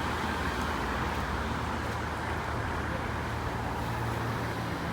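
Steady rumble of street traffic and engine noise.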